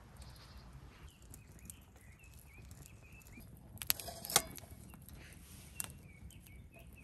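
Faint outdoor background with a thin, wavering high call heard twice, and a quick cluster of sharp knocks about four seconds in, with a single click near the end.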